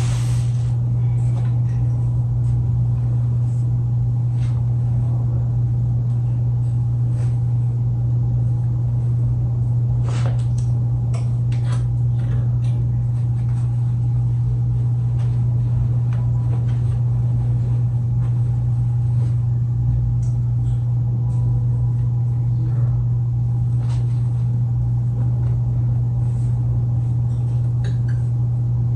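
A steady low hum runs throughout, with a few faint clicks and rustles as clothes and hangers are handled on a closet rail.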